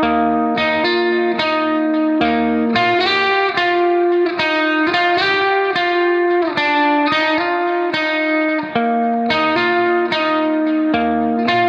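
Background music led by a plucked guitar, with a rhythmic bass line.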